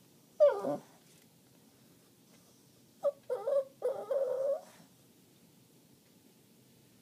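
A dog whining: one short whine that drops steeply in pitch about half a second in, then a run of three or four short whines a few seconds later.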